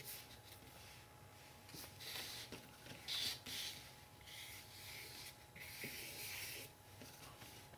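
Paintbrush bristles dragging acrylic paint across paper in short marks, a series of faint scratchy swishes.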